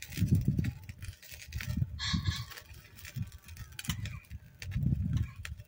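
Wind buffeting the microphone in irregular gusts, with faint crackling ticks from a small kindling fire.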